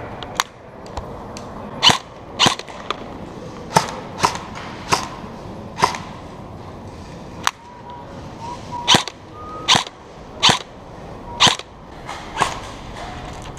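Airsoft replicas firing single shots: about fifteen sharp cracks at irregular intervals, some with a short echo off the warehouse walls.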